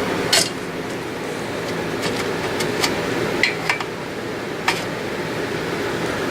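Light metallic clicks and taps, about six scattered hits, as a BMX crank arm is handled and lined up on its spindle, over a steady background hiss.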